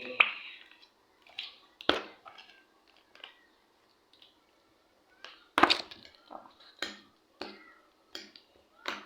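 A spoon clicking and scraping in a bowl as mayonnaise is spooned into a grated garlic and cheese sauce and stirred: a dozen or so scattered sharp clicks with quiet gaps between them.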